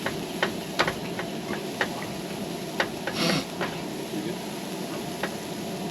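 A scrambled egg, sausage, bacon and onion mixture sizzling in a pan on a camp stove, with a spoon scraping and clicking against the pan every so often.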